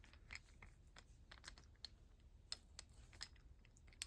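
Near silence with faint, irregular light clicks and taps, about a dozen of them, over a low background hum.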